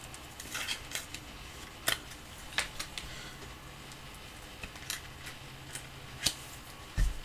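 Scattered light clicks and taps of trading cards being handled, about half a dozen at uneven intervals, over a faint steady low hum.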